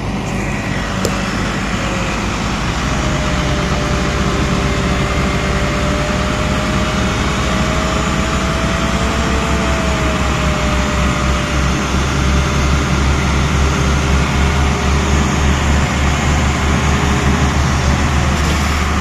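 Diesel engines of a tractor and a Mercedes-Benz garbage truck running under heavy load as the tractor tows the stuck truck out of the mud, with a faint steady whine above the engines. The low engine rumble grows louder about two-thirds of the way through as the pull works harder.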